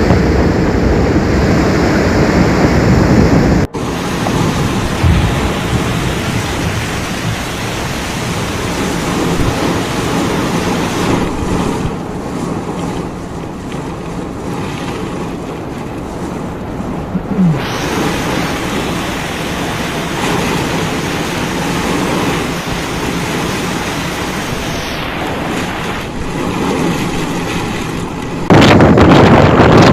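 Steady rush of floodwater and heavy rain, loud throughout, with the sound changing abruptly a few times as one clip cuts to the next.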